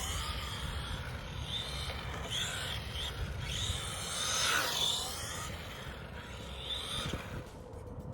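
Electric motor of a 1/14 Team Associated Reflex 14R Hoonicorn RC car whining and rising and falling in pitch as it is throttled on and off around the course, over a low steady rumble.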